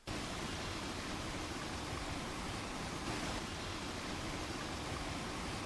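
Small waterfall in bushland, swollen by rain, giving a steady even rush of falling water.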